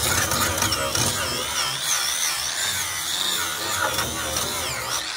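Small handheld grinder with an abrasive disc running against an aluminium truck hood panel, a steady grinding hiss under a high whine that wavers up and down as the disc is pressed on and eased off. It is cleaning up the bare aluminium, taking off old sticker residue.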